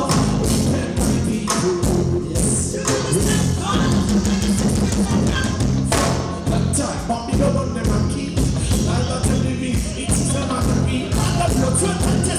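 Live reggae band music with a steady drum beat, bass line and light percussion.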